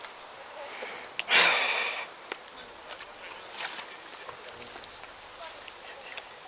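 A person's loud breath close to the microphone, under a second long, followed by scattered faint clicks and rustles.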